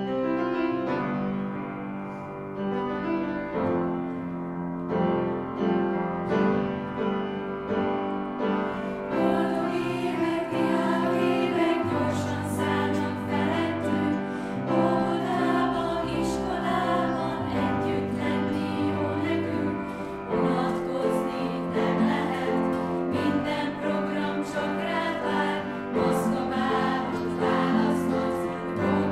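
Children's choir singing a song in Hungarian with piano and acoustic guitars; the first nine seconds or so are an instrumental piano introduction before the choir comes in.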